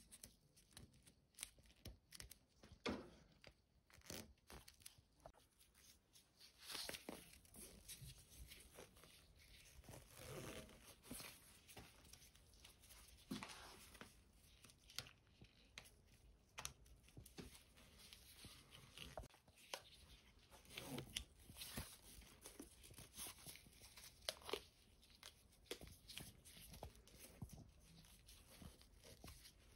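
Faint rustling, scraping and small clicks of gloved hands working a sword handle's wrap, pulling black cord tight around the grip.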